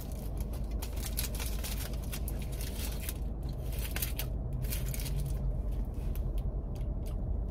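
Close-miked chewing of a soft flour-tortilla burrito: irregular wet mouth clicks and smacks, with the foil wrapper crinkling now and then as it is handled, over a steady low hum.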